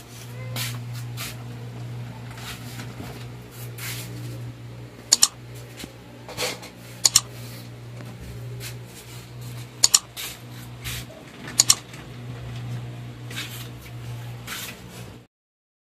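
Four sharp double clicks of a computer-mouse click sound effect, spaced about two to three seconds apart, over a steady low hum with faint taps and rustling. All sound cuts off suddenly near the end.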